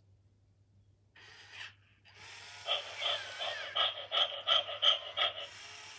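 MGA Georgie robotic plush puppy panting through its built-in speaker: a short breath, then a quick run of pants, about three or four a second, that stops shortly before the end.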